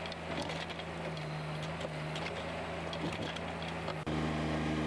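Three-cylinder Kubota diesel of a small skid steer running steadily while it drives a post-hole auger, with faint scattered clicks. About four seconds in the engine sound suddenly gets louder.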